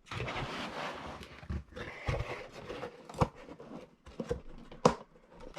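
Comic books in plastic bags rustling and bumping as they are packed back into a box, with a couple of sharp knocks.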